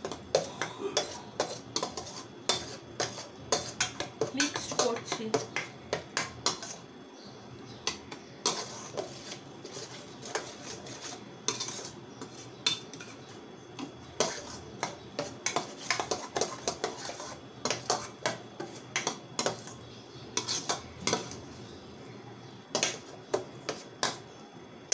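Metal spatula scraping and clinking against a stainless steel kadai while stirring a thick onion and tomato masala, a quick irregular run of scrapes and knocks with a couple of short pauses.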